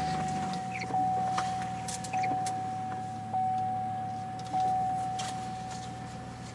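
A car's electronic warning chime dinging about every 1.2 seconds, four times, each ding fading into the next, over the low hum of the engine idling just after starting. A few light clicks come in the first half.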